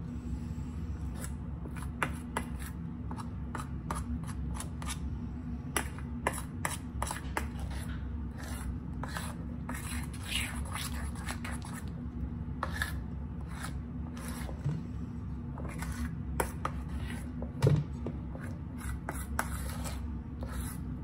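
Flour-and-water sourdough starter paste being mixed by hand in a stainless steel bowl: irregular wet scraping and rubbing against the metal sides, with one louder knock near the end.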